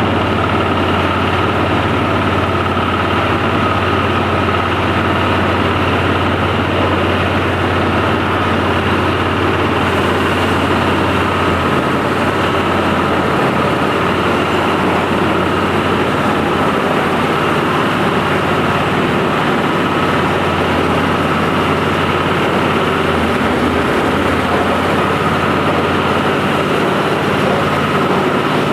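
Engine-driven rice thresher running steadily: a low engine drone with a steady whine above it.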